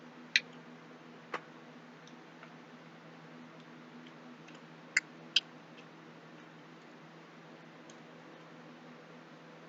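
A few sharp clicks over a faint steady hum: one about half a second in, another a second later, and a close pair about five seconds in.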